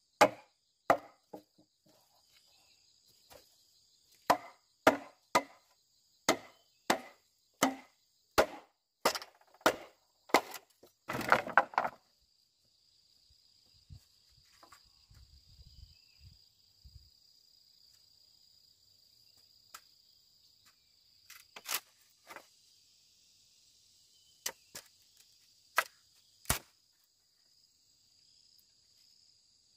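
Repeated chopping strikes of a blade into wood or plant stalks, roughly one or two a second, ending in a brief dense clatter about eleven seconds in. After that come only a few scattered strikes over steady high insect chirring.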